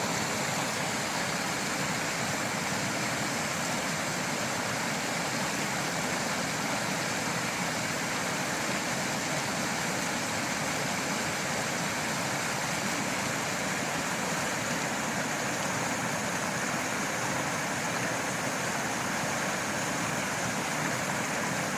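Creek water pouring over a beaver dam in rapids and small waterfalls, a steady, even rush. The water is going over the top because ice and snow block the dam's holes.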